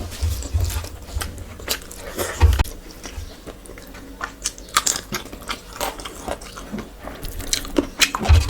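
A person chewing and biting food close to the microphone, with many irregular wet mouth clicks and smacks and occasional low thuds.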